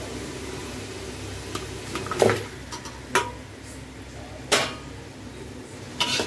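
A metal spatula clanks sharply against a metal cooking pot four separate times while raw chicken pieces go into the hot masala. Just before the end a quick run of clanks and scrapes begins as the stirring starts.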